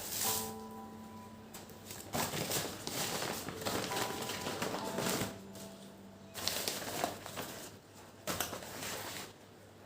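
Household handling sounds: irregular light knocks and clicks with crinkling and rustling in between, mixed with a few brief held tones.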